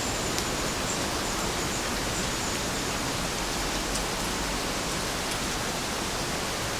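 Heavy rain falling steadily: an even hiss of rain with a few individual drops ticking through it.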